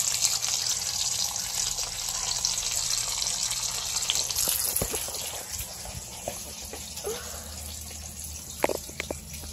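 Bacon strips sizzling in a frying pan: a steady hiss with small crackles that eases after about five seconds.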